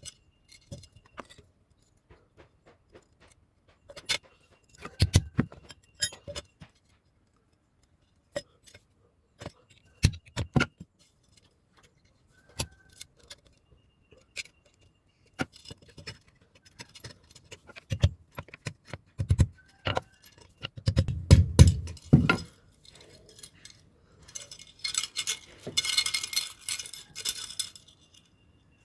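Irregular metal clinks, taps and knocks from a blacksmith handling and working a steel knife blade, some with a short ring, heavier in a cluster about two-thirds of the way through. Near the end comes a few seconds of dense, hissing scraping of metal.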